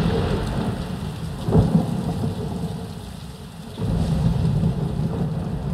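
Thunderstorm sound effects played through a Sonos Play:1 speaker: rain with thunder, a sharp clap about a second and a half in, a short lull, then the thunder swells again just before four seconds.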